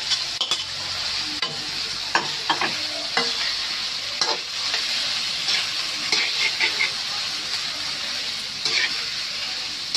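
Beef and beef liver sizzling in hot oil in a frying pan while a metal spatula stirs them, with scattered scrapes and knocks of the spatula against the pan.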